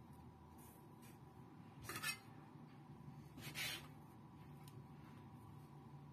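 Hands rubbing and pressing soft, sticky chocolate bread dough against a plastic cutting board: two brief rubbing sounds, about two seconds and three and a half seconds in, over a faint steady hum.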